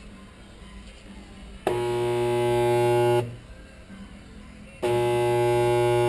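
Resistance spot welder firing twice, each weld a steady electrical buzz about a second and a half long, as current passes through an AK-47 receiver rail.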